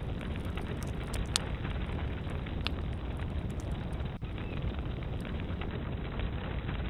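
Campfire burning, with a steady rushing roar and scattered sharp crackles and pops.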